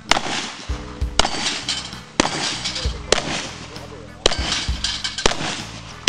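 Handgun shots fired about once a second, six or so in a row, each sharp crack trailing off in echo. Background music plays underneath.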